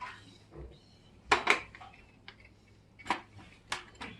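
Cutlery clinking against a dish during a meal: a handful of short, sharp taps, the loudest pair about a second and a half in.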